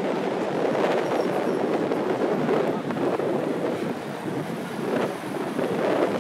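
Street traffic at a city intersection: cars passing, with a steady rumble of engines and tyres that swells and eases a few times.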